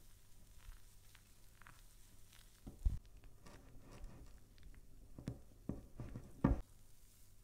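Wire whisk beating a wet zucchini-and-egg batter with flour in a glass bowl: soft wet stirring with light taps, and a few sharper knocks of the whisk against the glass from about three seconds in.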